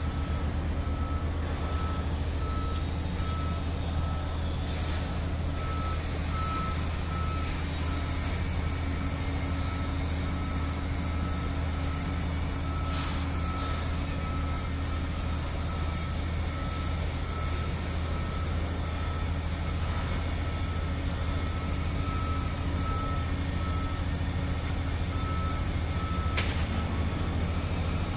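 The diesel engine of a JCB backhoe loader runs steadily at a low pitch. A reversing alarm beeps at even intervals over it.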